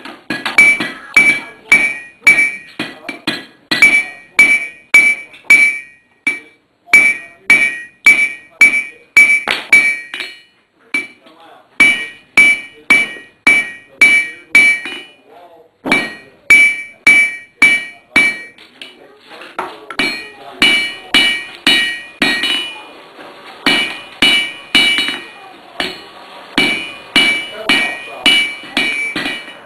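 Hand hammer striking a red-hot tong rein on an anvil to draw it out: steady blows about two to three a second, each with a bright ringing anvil tone, broken by a few short pauses.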